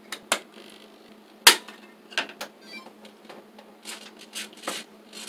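Hard plastic parts of a 3D-printed model sailboat being handled on a wooden workbench: scattered clicks and knocks, the loudest about one and a half seconds in, with a few brief rustles of the cloth sail near the end, over a faint steady hum.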